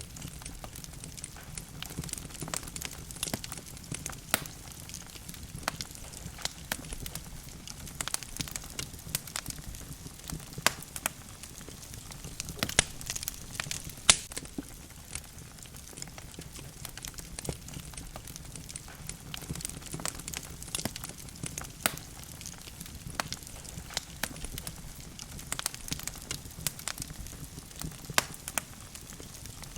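Logs burning in a fireplace, crackling with frequent irregular sharp pops over a steady low hiss of flames.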